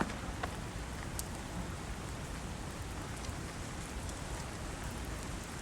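Steady rain falling, an even hiss, with two footfalls from running in the first half second.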